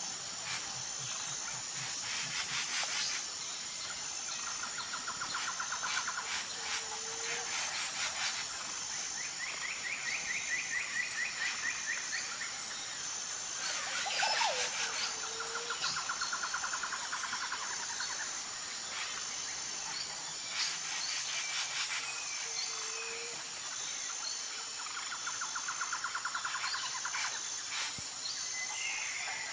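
Tropical jungle ambience: a steady, pulsing high insect chorus, with birds repeating fast trills every few seconds and a short low call coming back about every seven or eight seconds.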